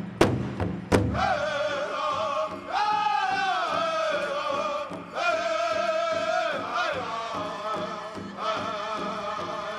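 Pow wow drum group: a big drum struck in a steady beat, loud for about the first second, then high-pitched male voices singing in unison in long, falling phrases over a softer drum.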